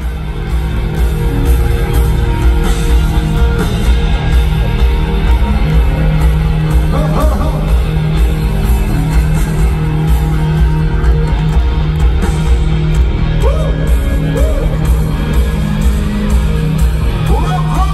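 Live rock band playing loudly on an amplified stage: a drum kit and electric guitars through Marshall stacks.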